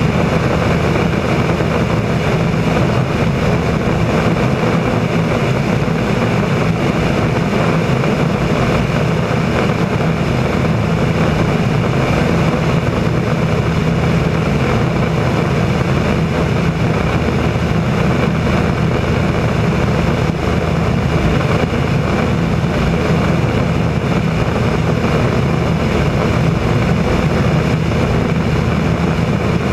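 Small single-engine propeller plane in cruise flight: the engine and propeller drone steadily under a rush of air, heard from a camera mounted under the wing.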